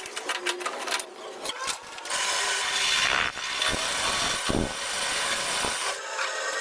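Workshop tools working a metal gear shaft: a few scattered clicks, then from about two seconds in a steady rasping, scraping noise with a few knocks.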